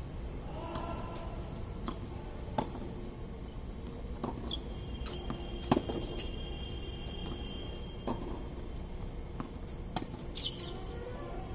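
Tennis rally on a hard court: a sharp pock of ball on racket or court every second or two. The loudest hit comes near the middle, as the near player strikes the ball.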